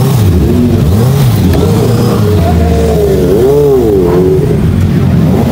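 Several sport motorcycle engines revving, their pitch rising and falling again and again as the bikes ride off slowly.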